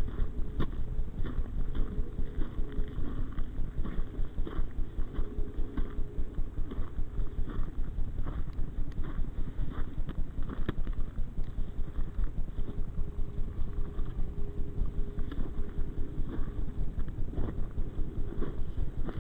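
A hiker's footsteps on a dirt and rock trail in a steady walking rhythm, each step a short crunch with a low thud.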